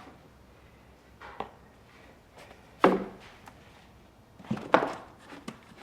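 Loose car body parts, such as skid pans and bumper trim, being handled and set down: a few separate knocks and clatters, the loudest about three seconds in and a quick cluster near the end.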